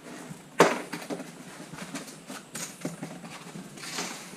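Packaging of an e-bike being handled during unboxing: scattered rustles and light knocks, with one sharp knock about half a second in.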